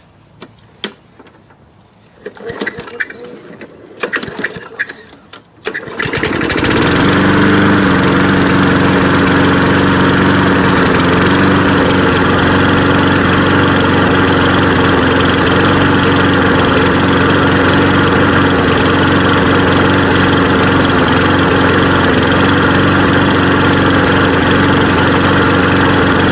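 Walk-behind lawn mower engine: a few clicks and rattles, then the engine starts about six seconds in and runs steadily. The mower was revived after its carburetor float stuck, and the owner says it still doesn't run too good.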